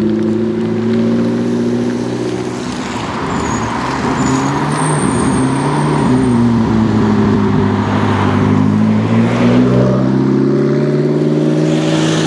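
McLaren 650S twin-turbo V8 through an Akrapovic exhaust, driving and accelerating. The note dips early on, then climbs steadily in pitch over the last few seconds.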